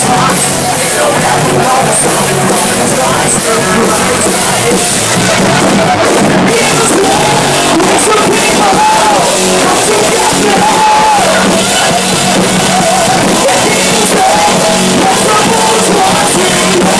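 Live rock band playing loud: electric guitars, bass guitar and a drum kit, with a male singer singing and yelling over them.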